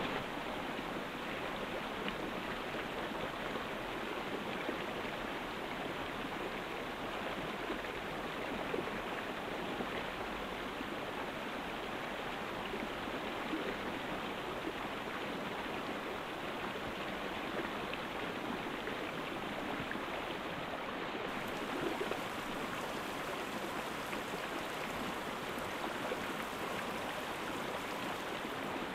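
Steady, even rushing noise that holds level throughout, with no distinct calls or knocks standing out.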